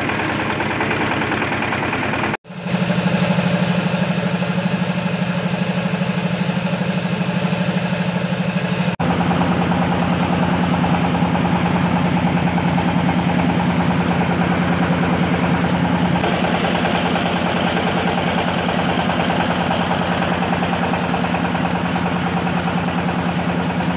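Coffee huller machine running steadily while hulling coffee beans, a loud mechanical drone with a steady low hum. The sound cuts off for an instant about two seconds in and jumps again near nine seconds.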